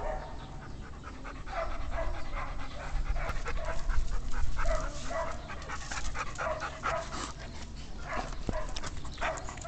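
A dog panting, quick rhythmic breaths through an open mouth.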